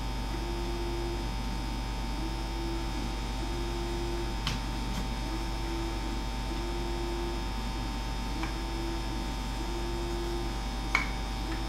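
Steady electrical mains hum in the recording, with a faint low tone that comes and goes about once a second. A few light clicks of small wooden kit parts being handled and slid together, the sharpest near the end.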